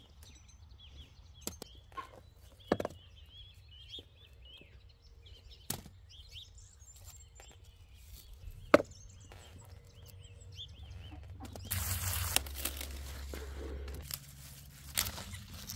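Hand trowel digging in garden soil, with scattered sharp knocks and scrapes as tubers are lifted and dropped into a wicker basket, and small birds chirping faintly behind. About twelve seconds in, a louder rustling of leaves as curly kale is handled and picked.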